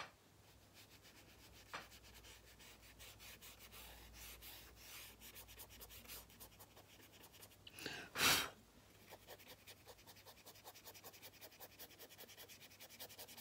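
Paintbrush rubbing on paper in quick short strokes, blending dry dark powder pigment into a painted wing: a soft, rapid, rhythmic scratching. About eight seconds in there is a short, loud burst of noise.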